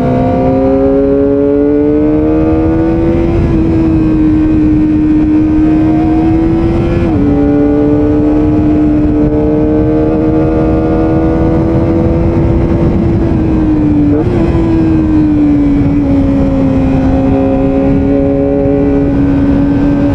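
Kawasaki ZX-25R's inline-four engine running under load on a hill climb in third gear. Its note climbs slowly, dips sharply about seven seconds in, climbs again and dips once more around fourteen seconds in, with a steady rush of wind noise underneath.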